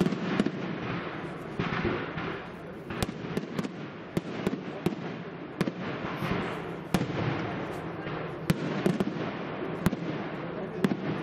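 Aerial firework shells bursting in quick succession in a professional display: a dozen or more sharp bangs, irregularly spaced, over a steady hiss.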